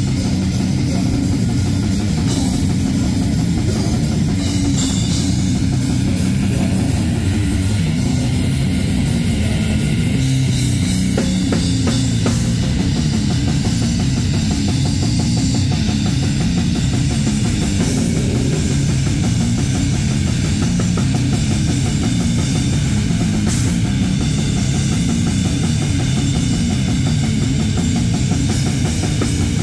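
Live heavy metal played on a drum kit with cymbals and electric guitar, loud and unbroken throughout.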